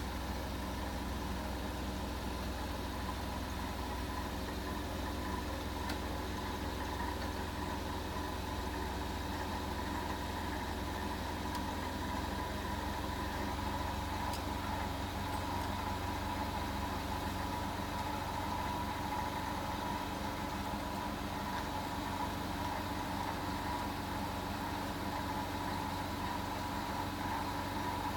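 LPG-fuelled Daewoo G20SC forklift engine idling steadily.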